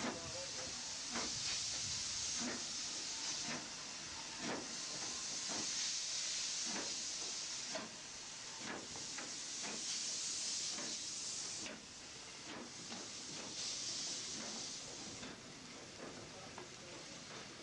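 Steam hissing from a saddle-tank steam locomotive in steam, swelling and fading in surges of a second or two, with scattered light knocks.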